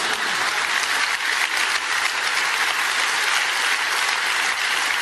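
A large theatre audience applauding, a steady dense clapping with no letting up.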